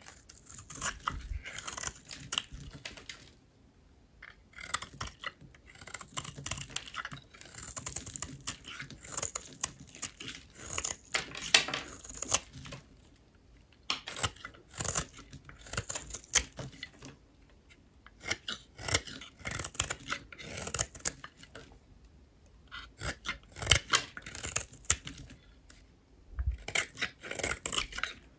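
A knife cutting through bars of dry soap: crisp scraping, crackling strokes in runs of a few seconds, with short pauses between.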